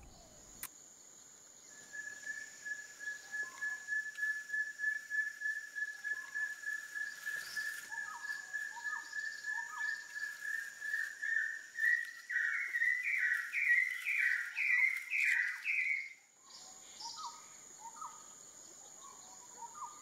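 Scaly-breasted partridge singing: a long run of short whistled notes, even in pitch at first, then climbing and growing louder into a climax before breaking off suddenly about sixteen seconds in. Softer, lower upslurred notes come and go beneath it.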